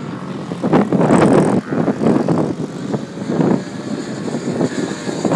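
Small youth quad bike engines running as the riders pass close by on a dirt track, the sound surging and easing unevenly.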